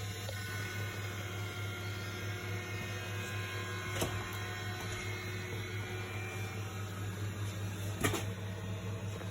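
Miele laundry machine running with a strange noise: a steady low hum with thin whining tones above it, and two sharp clicks about four seconds apart.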